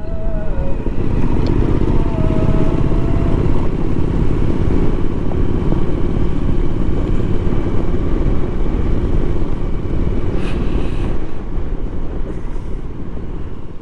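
Suzuki V-Strom motorcycle riding at low speed with a steady engine and wind rumble. A muezzin's call to prayer from a mosque is faintly heard over it in the first few seconds.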